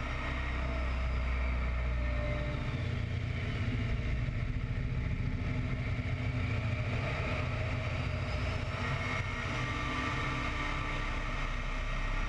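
Radial engine of an open-cockpit biplane droning steadily in flight, with air rushing past a camera mounted out on the wing.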